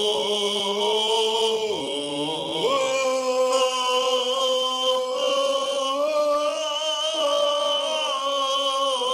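Chant-like vocal music: voices hold long notes that shift pitch every couple of seconds, dipping and sliding back up about two seconds in.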